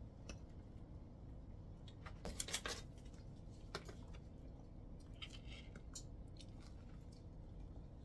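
Faint clicks and light knocks of kitchen containers being handled, a glass measuring cup and a plastic whipped-topping tub, with a cluster of sharp clicks about two and a half seconds in and softer crackles around five seconds in.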